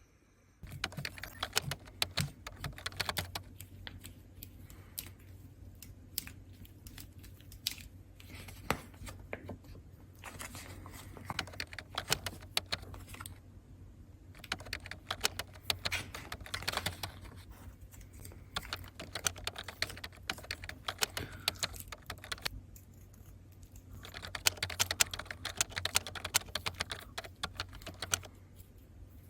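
Rapid, close-miked clicking and tapping of small hard objects with soft rustling, in dense clusters broken by short pauses about a third and three quarters of the way through.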